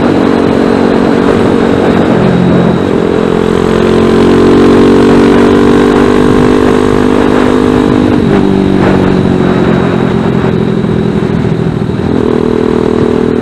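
Zongshen ZS190 single-cylinder four-stroke engine of a Grom-clone motorcycle running under way at steady revs. The engine note dips in pitch about two seconds in and again about eight seconds in.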